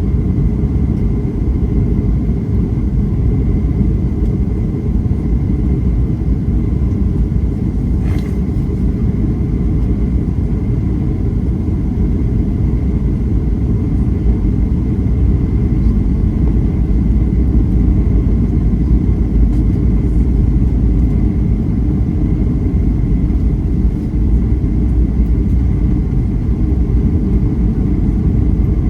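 Steady low rumble of a Boeing 737-800/900 airliner on approach: engine and airflow noise, with a faint steady high whine and a light click about eight seconds in.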